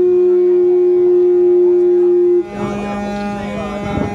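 A boat's horn blowing one long, loud, steady note that cuts off about two and a half seconds in. Then several horn tones sound together, with voices mixed in.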